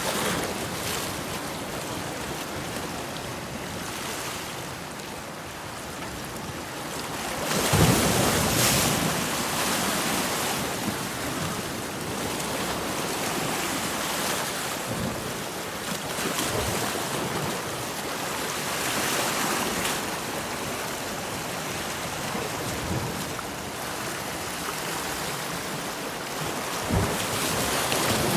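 Ocean surf: waves washing and breaking on the shore in a continuous rushing wash that swells and ebbs, with the loudest wave breaking a little over a quarter of the way through.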